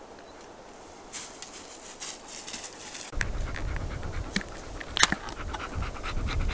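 A ring-pull tin can being opened by hand, with a sharp click about five seconds in as the tab breaks the lid's seal, among smaller rustles and clicks. A dog is panting close by.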